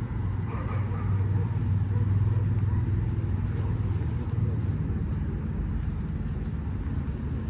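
A motor vehicle's engine running close by: a steady low hum that swells over the first second or two and eases off after about four seconds, over a background of street noise.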